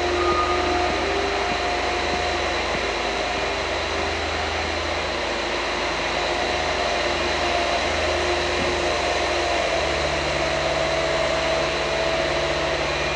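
Steady mechanical drone of machinery running in the building, with a few steady tones through it; a lower hum joins about ten seconds in.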